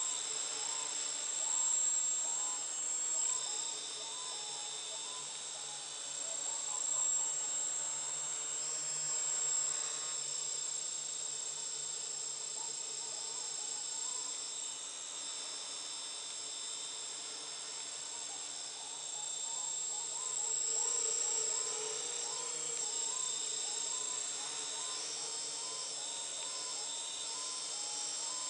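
OpenPilot quadcopter's electric motors and propellers buzzing as it hovers, a steady high whine whose pitch wobbles up and down as the motor speeds keep changing to hold it in the air.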